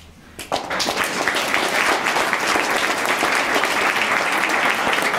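Audience applauding steadily, starting about half a second in after a brief lull.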